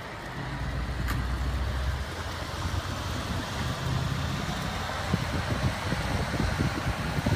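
Heavy-haulage rig rolling past: the diesel engine of a MAN 8x4 ballasted tractor unit pulling a loaded multi-axle Scheuerle trailer, a steady low drone with rumble from the trailer's wheels on the road. It gets louder about half a second in, and there is a single sharp click about a second in.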